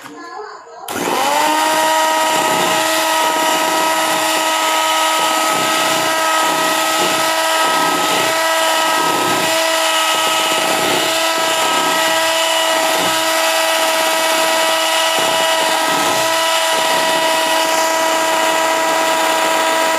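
Electric hand mixer switched on about a second in, its motor quickly rising to a steady, high whine as its twin wire beaters whip a foamy egg-and-sugar batter.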